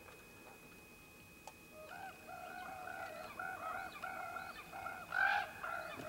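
Ravens calling: a rapid run of short, arched croaks that starts about two seconds in and is loudest near the end.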